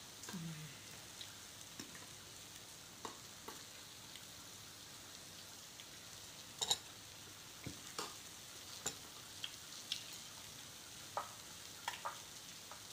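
Meat sizzling on a tabletop grill pan, a steady low hiss, with scattered light clinks of forks and spoons against bowls and plates.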